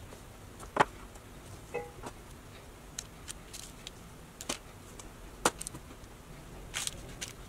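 A few scattered soft clicks and taps as oiled sweet potato fries are lifted from a metal bowl and laid one by one on a parchment-lined baking sheet.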